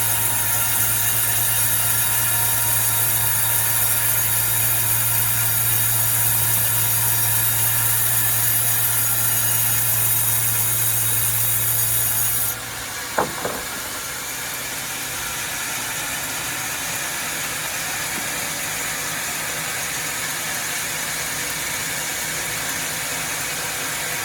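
Sawmill saw and machinery running steadily with a constant hum. About halfway the sound drops suddenly and a brief falling squeal follows, then the machinery runs on more quietly.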